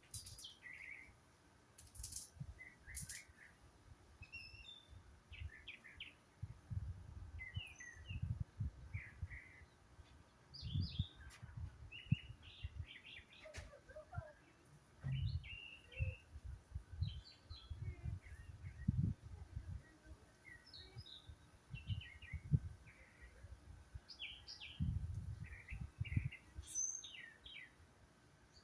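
Several wild songbirds chirping, with short high calls scattered throughout and some overlapping. Under them runs an uneven low rumble that swells and fades every second or two.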